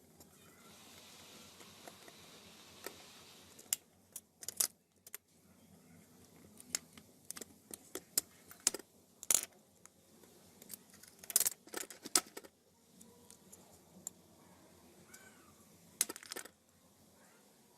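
Small metal parts and hand tools clicking and clinking against each other and a work surface, in irregular sharp taps, during hands-on work on a small die-cast model car. A faint hiss sits under the first few seconds.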